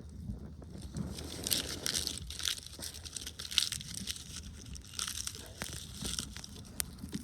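Dry plant material crinkling and crunching in irregular bursts, the sound of dry tinder being handled and crushed.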